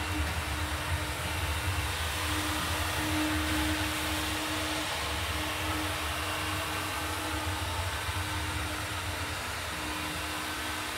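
Gas torch flame burning with a steady hiss and low rumble, heating a rear suspension-arm rubber bushing to loosen it for removal.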